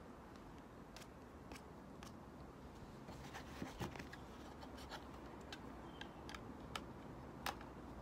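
Faint, scattered small clicks and scrapes of hand tools on wiring: the end of a cable being worked with a small tool, then wires being fitted into the screw terminals of a solar charge controller with a small screwdriver. The clicks come more often in the second half, with one sharper click near the end.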